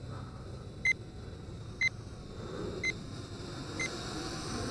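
Short, high-pitched electronic beeps repeating about once a second from the drone's phone control app, the alert that headless mode is switched on.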